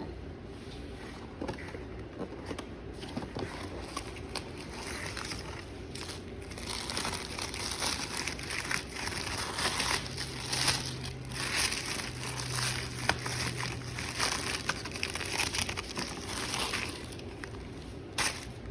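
Packaging wrap crinkling and crackling as it is handled and opened, in irregular rustles that get busier a few seconds in and ease off near the end.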